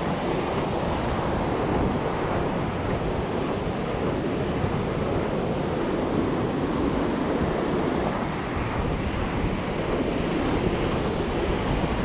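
Ocean surf washing onto the beach in a steady rush, with wind buffeting the microphone.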